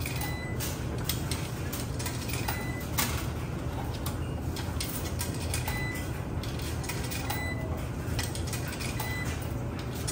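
Quarters fed one by one into a Speed Queen commercial washer's coin slot, each dropping through the coin mechanism with a metallic click. Several short high beeps come through, over a steady low hum.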